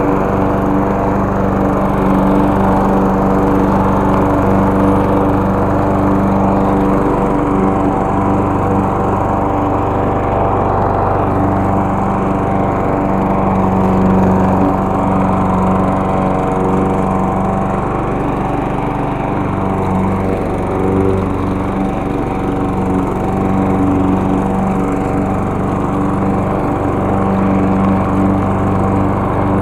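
Gas-powered walk-behind lawn mower engine running at a steady speed as it is pushed through grass, cutting.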